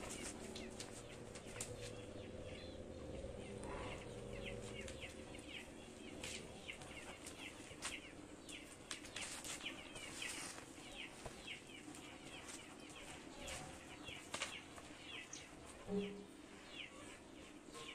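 Small birds chirping rapidly in the background, over scattered clicks and scuffs, with one short low-pitched call about sixteen seconds in.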